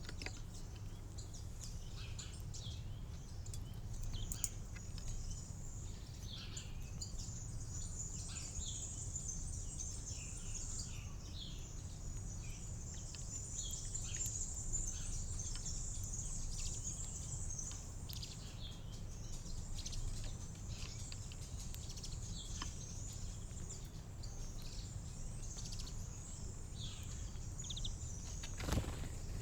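Small songbirds at a garden feeder chirping and twittering in short, frequent calls over a steady low background rumble, with a sharp knock near the end.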